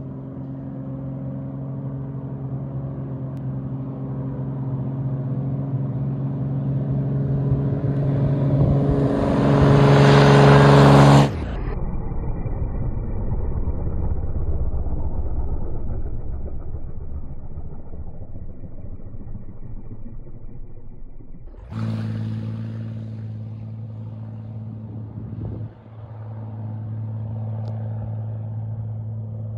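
Cirrus single-engine propeller airplane on its takeoff run at full power: a steady engine-and-propeller drone that grows louder as the plane nears, cutting off abruptly about eleven seconds in. After further sudden cuts the drone goes on as the plane climbs away.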